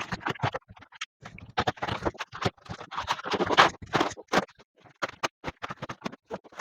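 Cardboard box and packaging being opened and handled by hand: irregular scraping, rustling and sharp clicks, loudest about three and a half seconds in.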